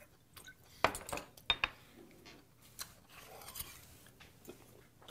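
Scattered light clinks and knocks of glass and tableware: a glass soju bottle and shot glass handled and set down on the table, and chopsticks against a plate. A couple of sharper knocks stand out about a second in and again around a second and a half.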